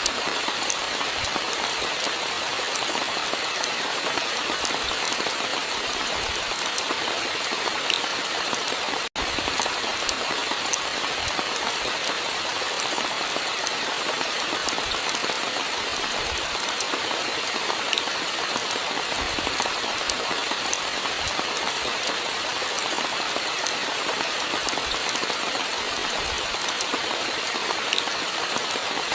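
Steady rainfall: an even hiss with many scattered sharp ticks of individual drops and occasional soft low thumps. A momentary dropout breaks the sound about nine seconds in.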